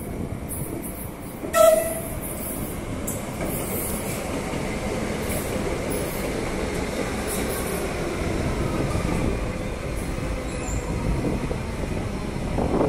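Concarril MM-90 metro train pulling into the station: a short horn blast about a second and a half in, then the steady rumble of its wheels on the rails with a faint falling whine as it slows.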